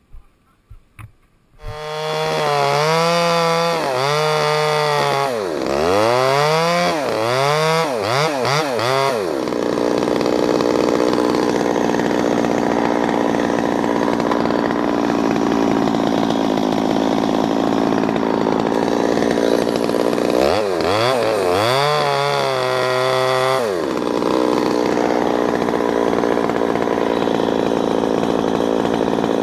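Two-stroke chainsaw that comes in about two seconds in and is revved up and down several times. It then runs steady at full throttle, cutting walnut wood. Around twenty seconds in it drops back and revs up and down again, then returns to full throttle.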